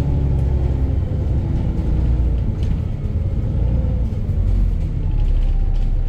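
VDL bus diesel engine running with a loud, deep rumble; the engine note drops about two seconds in, then settles into a steady low drone. The engine is knocking and the exhaust is blown.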